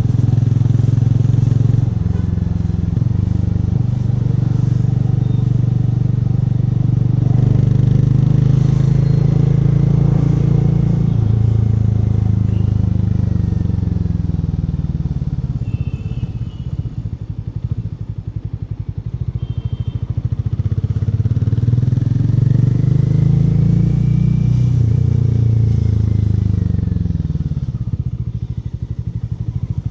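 Hero Mavrick 440's single-cylinder engine running through its stock exhaust with a deep, rumbling note as the bike is ridden. The revs ease off through the middle, climb again and drop back near the end.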